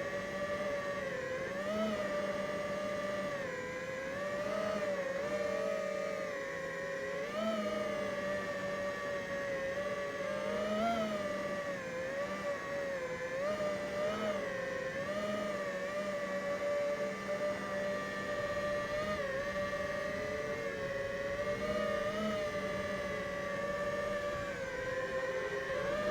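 FPV quadcopter's brushless motors and propellers whining steadily in flight, the pitch briefly rising and falling back every few seconds with throttle changes.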